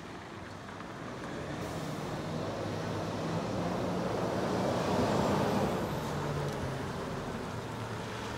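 Scania P230 road-sweeper truck's diesel engine running as the truck drives and turns, with tyre noise on gravel. The sound grows louder to a peak about five seconds in, then eases off slightly.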